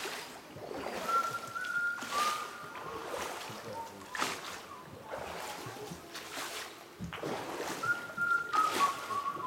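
Water splashing in separate strokes every second or two, echoing under a cave roof, with short high whistled tones stepping up and down in pitch about a second in and again near the end.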